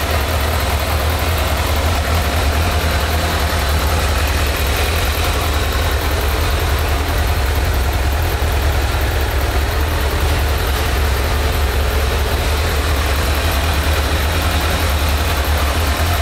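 Kawasaki ZZR1200's inline-four engine idling steadily.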